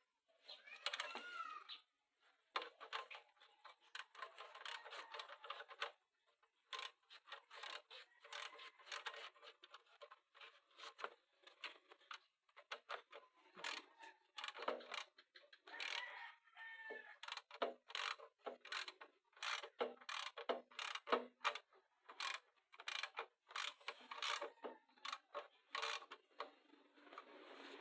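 Irregular clicks and knocks of metal and plastic parts and tools being handled while a pressure washer is assembled by hand, with a faint call falling in pitch about a second in and again midway.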